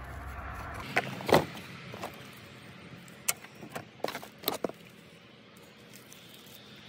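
Handling coiled security-camera video cables and their plastic and metal plugs in a cardboard box: a string of sharp clicks and clacks with some rustling, the loudest about a second and a half in, thinning out after about five seconds.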